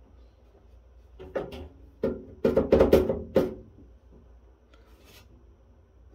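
Thin sheet-metal top cover of a Biamp Tesira Server-IO rack unit flexing and rattling as it is worked against its tight-fitting tabs: a short rub about a second in, then a louder run of clattering and scraping about two to three and a half seconds in.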